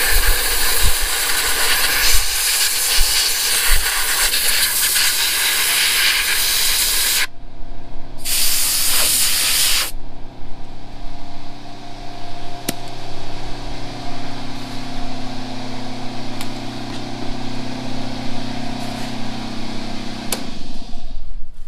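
Compressed-air blow gun hissing as it blows out a mower engine's air-filter housing: one long blast of about seven seconds, then a short second blast. After that an air compressor's motor hums steadily, then winds down near the end.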